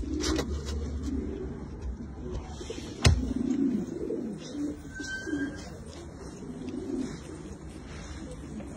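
Domestic fancy pigeons cooing, many low coos overlapping one after another, with a sharp click about three seconds in.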